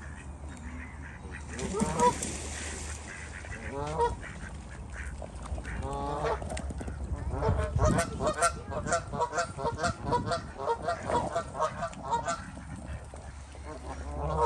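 Geese honking: a few separate calls, then a rapid run of honks, several a second, for about five seconds past the middle.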